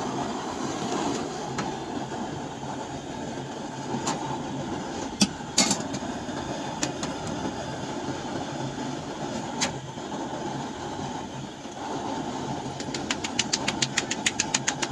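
Steady roar of a gas stove burner under an iron tawa, with a few sharp metal clicks of tongs on the pan about five seconds in. Near the end come quick rhythmic slaps, about seven a second, of a ball of roti dough being patted between the palms.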